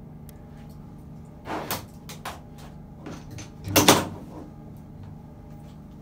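Objects being handled and put down on a desk: a few light knocks, then a louder clatter about four seconds in, over a faint steady hum.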